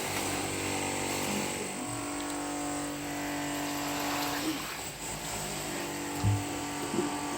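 A motor running with a steady drone of several held tones, and a short low thump about six seconds in.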